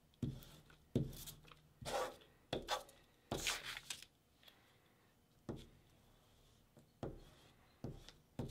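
Glue stick rubbed in short, irregular strokes across a sheet of printer paper, a dry scratchy rubbing with the paper rustling, about nine strokes with a longer one a little past three seconds in.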